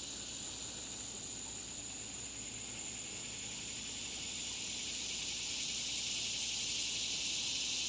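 Steady, high-pitched chorus of insects buzzing, growing slightly louder toward the end.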